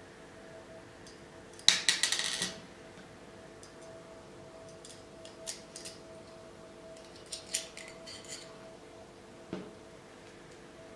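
Small steel hardware clinking and rattling in the hands as a screw, washer and nut are fitted to a flat metal bracket. A dense run of clinks comes about two seconds in, followed by scattered lighter taps, over a faint steady hum.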